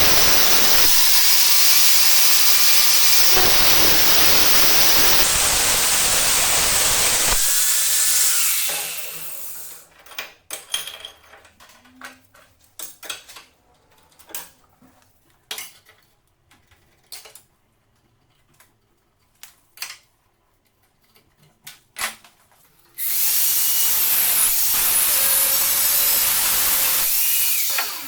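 A power tool running steadily at full speed, then winding down. This is followed by scattered knocks and clinks of parts being handled, before the tool starts running again near the end.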